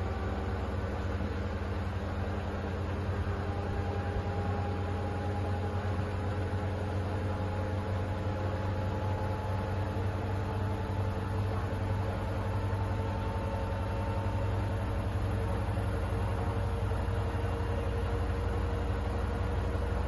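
Hoover H-Wash 500 washing machine running its colour cycle: a steady low hum from the drum, with a faint motor whine that rises slowly in pitch as the machine gets a little louder.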